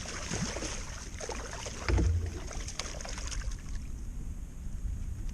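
Water splashing and lapping around a small boat, with a low thump about two seconds in.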